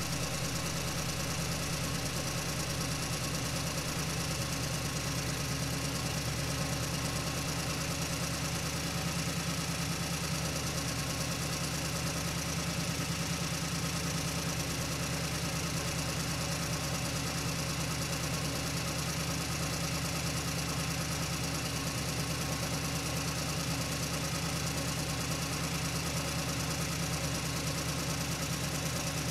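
An engine idling steadily with a fast, even knock, unchanging throughout.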